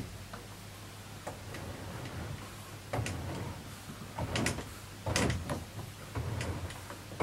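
Homemade table saw's tilting mechanism being worked by hand, the stopped blade and motor assembly swinging back toward upright. It gives a series of sliding scrapes and knocks, the loudest between about four and five and a half seconds in.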